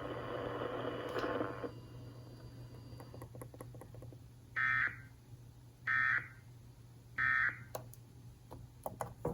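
Three short, identical buzzy data bursts of an Emergency Alert System end-of-message signal, heard over the radio, about a second and a quarter apart. They mark the close of the flash flood watch alert.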